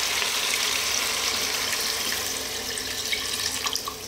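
Water poured from a glass jug into a saucepan of browned beef and tomatoes, a steady splashing pour that tapers off in the last second or so.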